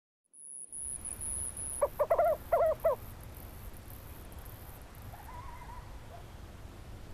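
Owl hooting: a quick run of about four short hoots some two seconds in, then a fainter call later, over a steady low rumble. A thin high whine sounds in the first second or so.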